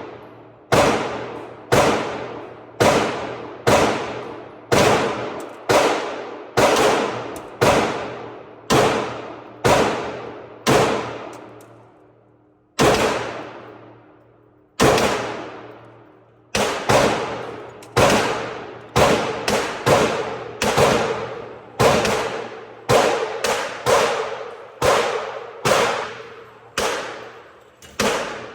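Glock 19 9mm pistol fired shot after shot, about one a second, each shot ringing out with a long echoing tail. There is a pause of about two seconds near the middle, and the shots come quicker toward the end.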